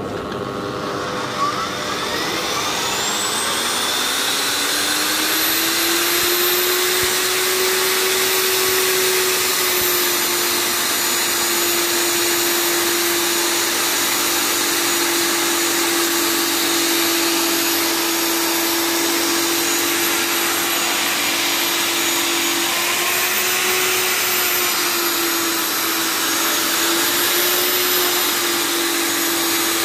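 Stand-mounted electric diamond core drill with a water-fed core bit, starting up with a rising whine about a second in, then running steadily as it cores into a concrete floor. Its pitch wavers a little near the end as the bit is fed under load.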